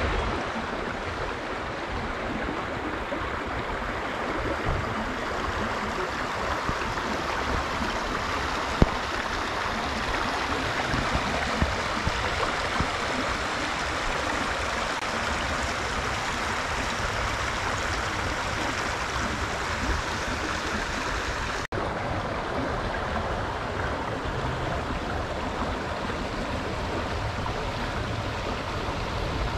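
Shallow creek running over a bed of river stones: a steady rushing and babbling of water.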